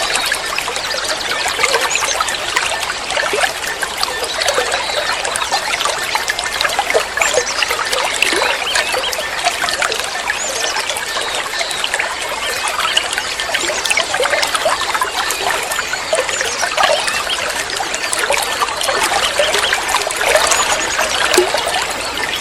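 Water trickling steadily, with short bird chirps scattered through it.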